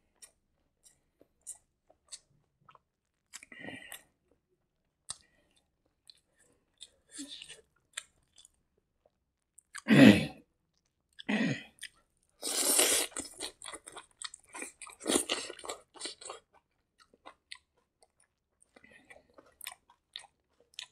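Close-up eating sounds of a man eating rice and cooked greens by hand: sparse wet lip smacks and clicks, then about ten seconds in a loud wet mouth sound as a handful of greens goes in, followed by several seconds of crunchy chewing.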